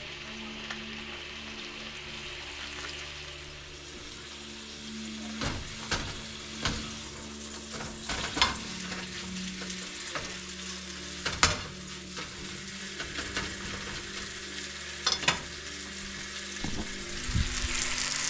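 Blade roast pieces searing in butter and oil in a frying pan, with a steady sizzle. A meat fork knocks against the pan several times as the meat is moved and turned. The sizzle grows louder near the end.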